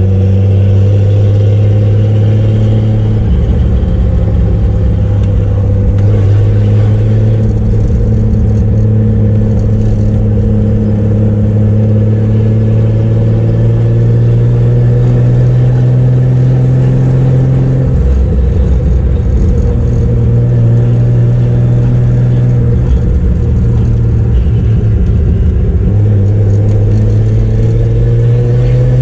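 Turbocharged Chevrolet Opala inline-six engine running under way, a steady drone that slowly rises in pitch. The engine note drops and changes about 3, 18 and 26 seconds in, and climbs again near the end.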